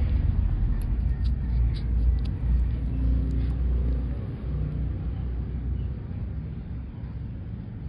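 Low rumble, fading over the last few seconds, with a few faint clicks about one to two seconds in.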